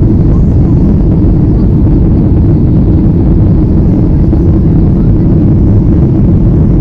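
Jet airliner cabin noise: engines and rushing air heard from a window seat over the wing, a loud, steady low rumble that does not change.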